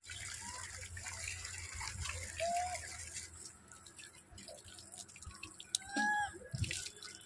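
Two short arched calls from rhesus macaques, a faint one about two and a half seconds in and a louder one about six seconds in. They sound over a steady hiss and low hum, with a few light knocks.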